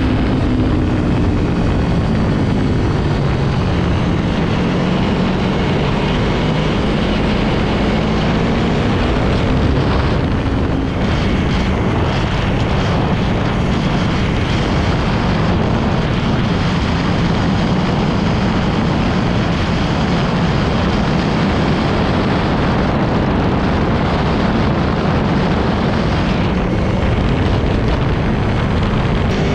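Aprilia motorcycle engine running at a steady cruise, heard from the rider's seat under a loud, continuous rush of wind and wet-road noise. Right at the end the engine note starts to climb as the bike accelerates.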